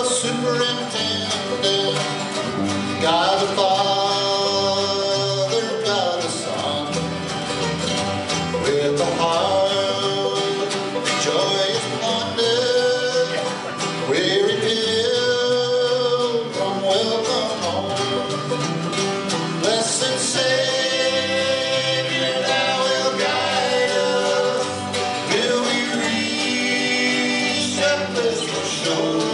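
Bluegrass band playing a country gospel song live, with acoustic guitars, fiddle, banjo and mandolin.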